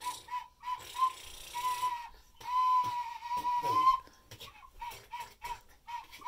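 Cheap plastic toy recorder blown on a single note: a run of short toots, a couple of longer held notes in the middle, then quick toots about three a second. The notes are breathy, with some hiss on top.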